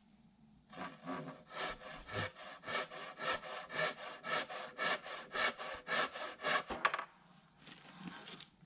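Hand saw cutting through a wooden board with quick, even back-and-forth strokes, about three a second, stopping about seven seconds in.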